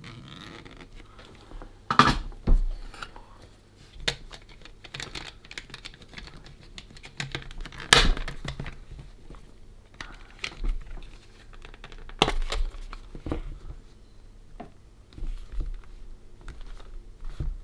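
Irregular sharp clicks and knocks with crinkly rustling from hands handling a small plastic electronic device and tools at a workbench, the loudest knocks about 2, 8 and 12 seconds in.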